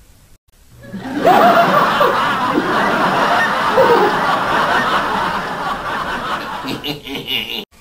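Audience laughter from a laugh track, many people laughing at once. It comes in about a second in, stays loud and cuts off abruptly near the end.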